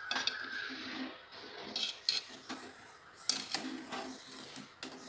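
Metal ladle scraping and clinking against the side of an aluminium pot as thick ada payasam is stirred off the heat, in irregular strokes and taps.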